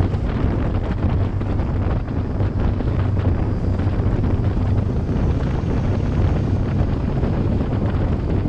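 Wind rushing over the microphone of a small-block-powered catamaran deck boat running at about 40 mph. Under the wind, the engine drones steadily low and water rushes past the hull.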